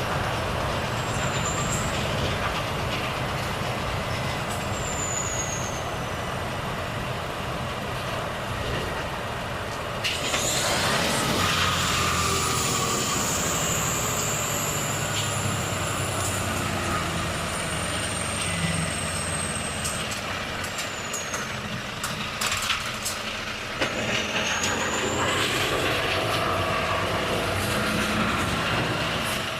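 Volvo FH truck's straight-six diesel engine running steadily on the move, with tyre and road noise. About ten seconds in a loud hiss of air starts, with high whistling tones that glide downward.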